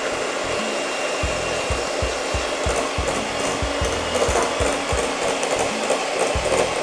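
Electric hand mixer running steadily, its two beaters whisking a thick batter in a glass bowl.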